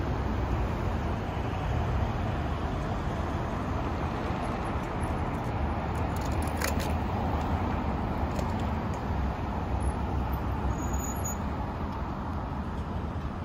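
City street traffic: cars moving through an intersection, a steady low rumble of engines and tyres. A couple of faint clicks sound about six and a half seconds in.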